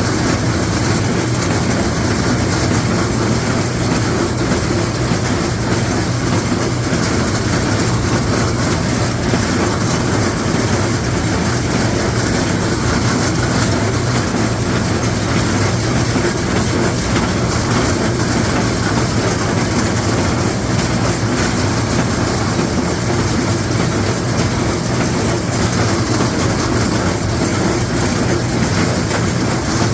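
LS XR4150 tractor pulling a John Deere hay baler: the engine runs steadily under the baler's continuous mechanical clatter.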